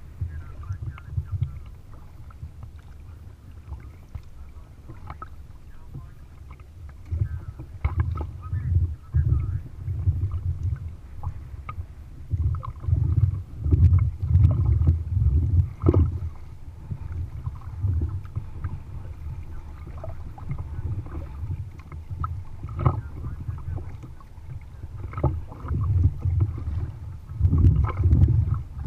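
Kayak paddling on choppy water: the blades of a double-bladed paddle splashing in and dripping at irregular strokes, over an uneven low rumble of wind and chop against the hull that swells and fades.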